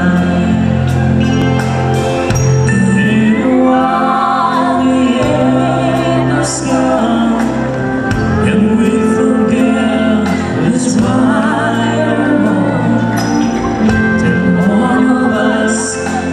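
A man singing a slow ballad into a microphone with a live band of electric guitar and drums, with regular cymbal hits.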